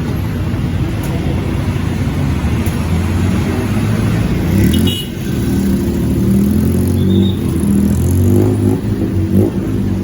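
Busy street traffic: motor vehicle engines running close by, with a steady low rumble.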